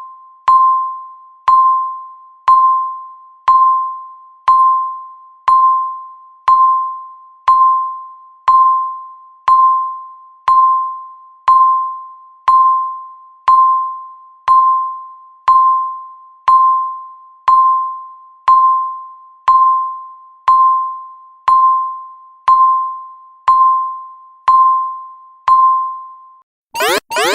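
Countdown timer's electronic beep, a single mid-pitched tone struck once a second and fading quickly after each strike, marking the final seconds of the countdown. Right at the end the count reaches zero and a loud alarm begins, a rapid pulsing of swept tones.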